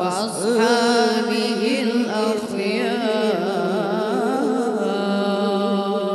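A boy qari chanting into a microphone in the ornamented, melodic style of Qur'anic recitation: long held notes that waver and glide between pitches.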